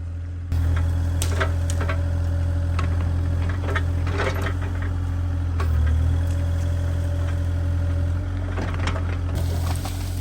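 Compact excavator's diesel engine running steadily under load as trees are pushed down, with repeated sharp cracks and snaps of breaking wood and branches.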